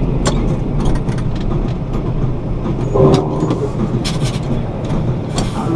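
A heavy vehicle's engine running steadily, with a few sharp knocks and clatters and a short louder burst about three seconds in.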